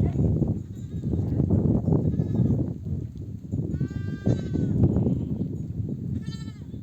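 Sheep bleating as the flock comes in from pasture, mother sheep calling for their lambs to suckle: several calls, the longest and loudest about four seconds in and a shorter one near the end. A loud, constant low rumbling noise runs underneath.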